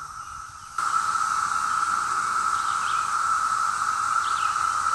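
A cicada chorus makes a steady, high, droning buzz that jumps louder about a second in. A few faint bird chirps come through about every second and a half.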